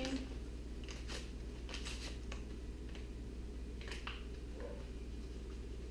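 A paper seasoning packet being handled and opened, then shaken into a pan: a few short rustles and snips over a steady low hum.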